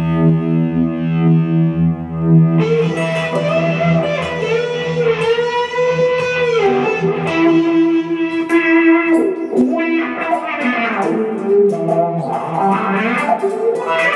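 Fender Stratocaster electric guitar played through a Fender Champion 100 amp with effect pedals. A chord is held and rings for about two and a half seconds, then a single-note lead line follows with several string bends.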